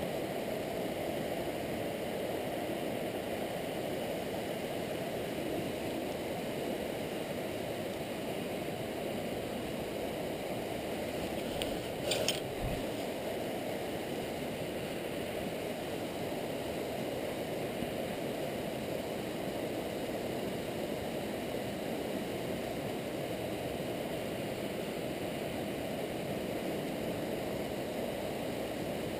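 Steady rushing of river water over a riffle, an even unbroken noise, with one short knock about twelve seconds in.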